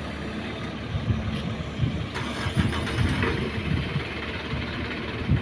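Diesel dump truck engine running nearby at low speed, a steady low rumble with uneven throbs in it.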